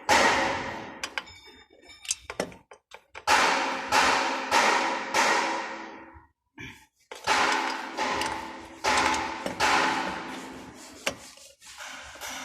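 A series of sharp metal-on-metal strikes at uneven intervals, each ringing out and fading over a second or two.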